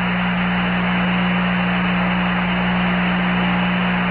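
Steady hiss of radio static from the Apollo 11 air-to-ground lunar transmission, with a low steady hum underneath.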